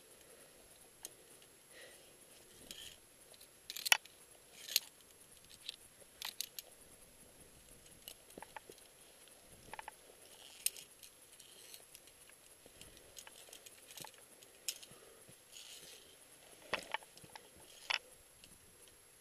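Scattered metallic clinks and scrapes of via ferrata carabiners on the steel safety cable, with boots scuffing on rock. The sharpest clinks come about four seconds in and again near the end.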